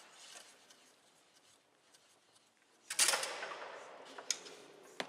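Foosball play on a Bonzini table: a few quiet seconds, then about three seconds in a loud, sharp bang of the ball being struck hard, ringing out briefly. Two shorter clacks of ball and rods follow near the end.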